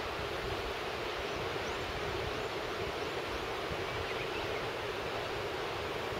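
Wind buffeting the camera microphone, an uneven low rumble over a steady rushing hiss.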